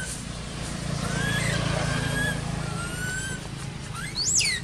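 Baby macaque crying: thin, drawn-out whistling cries that slide up and down in pitch, then a louder shrill cry about four seconds in that sweeps up high and falls away. A low steady hum runs underneath.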